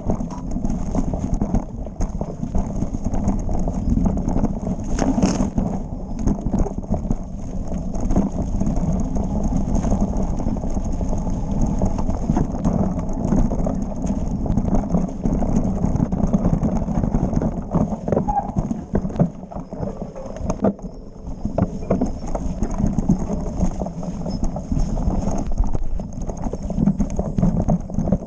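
Mountain bike descending a rough trail: a continuous, irregular clatter of knocks and rattles as the tyres, suspension and chain bounce over rocks and roots, over a low rumble.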